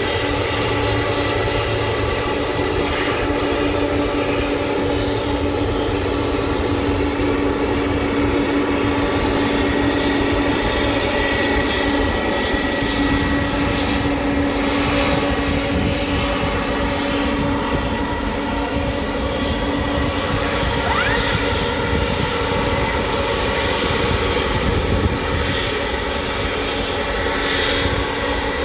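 Air China Boeing 747's four jet engines running at taxi power, a steady rumble with a high whine over it.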